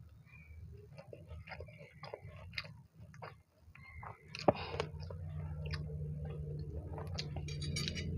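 Close-up eating sounds of a person chewing food: irregular wet mouth clicks and smacks, with one sharp click about halfway through.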